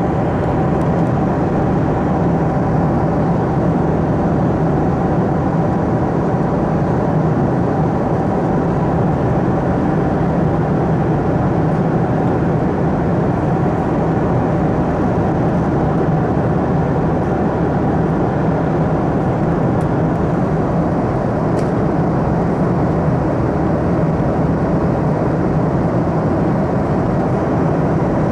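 Steady cabin roar inside a Boeing 737-300 at cruise: airflow and engine noise from its CFM56 turbofans, heavy in the low and middle range with a low hum underneath.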